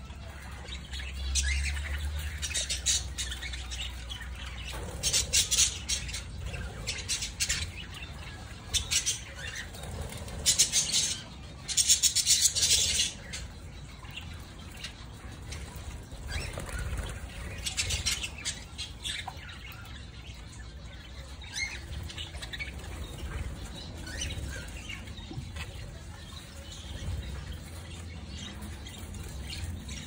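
Budgies and Japanese quails in a sand pen: repeated short bursts of wing flapping and rustling, the loudest two about a third of the way in, with a few faint chirps.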